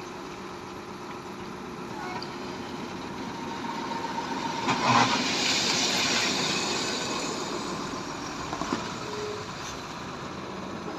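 Heavy diesel engine running steadily, growing louder for a few seconds in the middle with a sharp knock about five seconds in.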